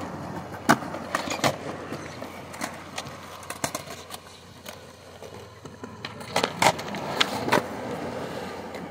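Skateboard wheels rolling over the skatepark ground with a steady rumble, broken by several sharp clacks of the board striking the surface, the loudest about a second in and a quick run of them near the end.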